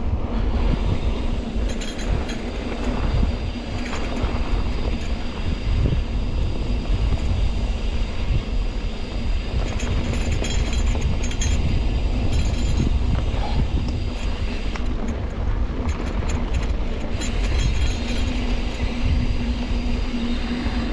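Trek Roscoe 8 hardtail mountain bike riding over a rough dirt trail: a continuous rattle and rumble from the tyres, chain and frame, with a steady low hum and scattered clicks. Wind buffets the action camera's microphone.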